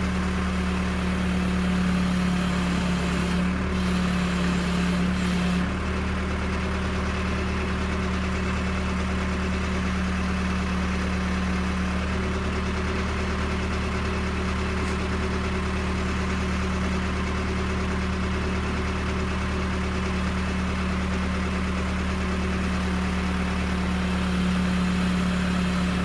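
Case backhoe's engine running steadily at idle, a constant low hum.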